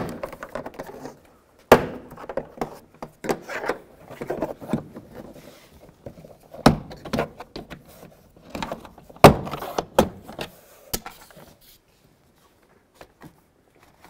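Plastic interior door panel of a Nissan Xterra being pulled off the door, its push-pin clips popping loose one at a time with about five sharp snaps between scraping and rustling of the panel.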